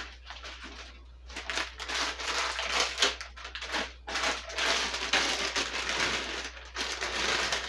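Plastic bag of frozen Brussels sprouts crinkling and rustling as it is handled and opened, starting about a second in and going on unevenly, with brief let-ups.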